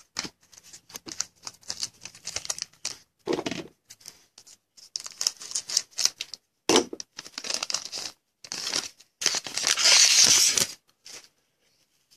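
Foil wrapper of a 2014 Panini Contenders football card pack crinkling in the hands in short rustles, then torn open in one longer rip near the end.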